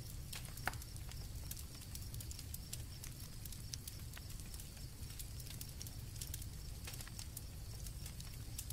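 Campfire crackling with irregular pops and one sharper crack about a second in, over a low rumble, with crickets chirping steadily in the background.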